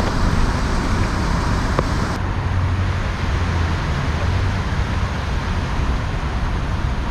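Steady low outdoor rumble with hiss, with one faint click about two seconds in.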